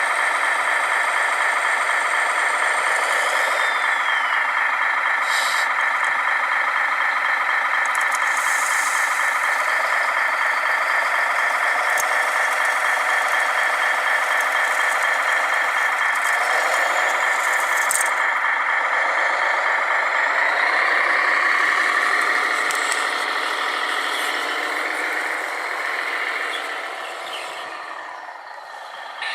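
Electric motors and gear drives of radio-controlled construction models whining steadily, the pitch wavering as they work, with a few sharp clicks. The whine eases off and gets quieter near the end.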